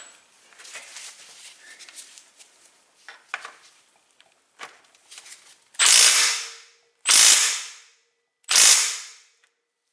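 Impact wrench fired in three short bursts, a bit over a second apart, each loud and fading quickly, seating a bicycle's left-hand-threaded bottom bracket cup. Before them come a few seconds of faint tool-handling clicks.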